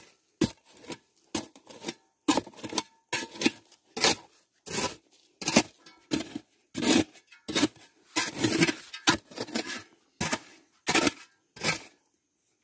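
A short-handled digging tool striking and scraping into soil, about two to three strokes a second, stopping shortly before the end.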